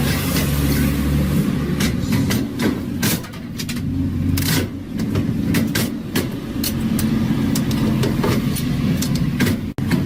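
Steady low mechanical hum with many short sharp clicks and knocks scattered through it, and a brief dropout near the end.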